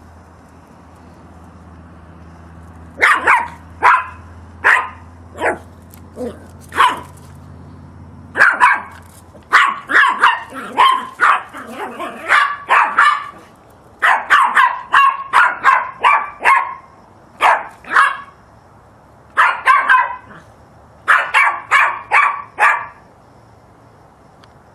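Yorkshire terrier barking in short, high yaps: a few spaced barks, then quick runs of barks from about eight seconds in, broken by short pauses.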